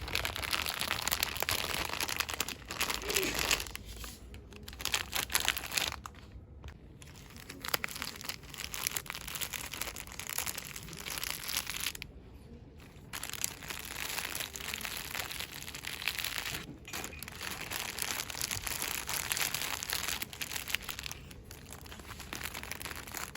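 Cosmetics packaging crinkled and rustled quickly by hand, a dense crackle broken by a few short pauses.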